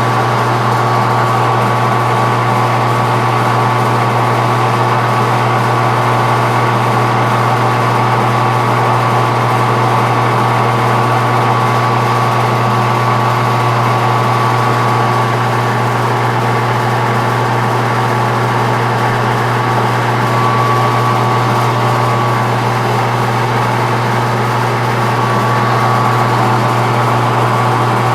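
Metal lathe running steadily, a constant low hum with a thin high whine over it.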